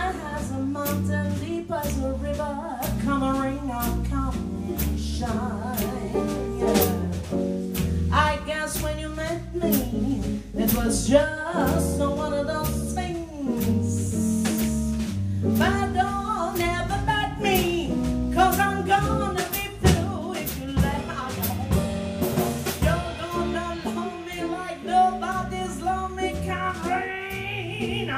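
Live jazz band: a woman singing at the microphone over archtop electric guitar, upright double bass and drum kit, with cymbals ticking steadily.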